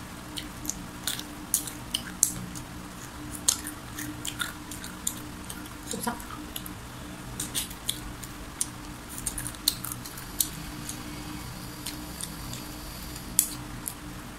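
Close-up chewing and biting of crispy fried chicken: irregular sharp crunches and crackles of the fried batter, over a steady low hum.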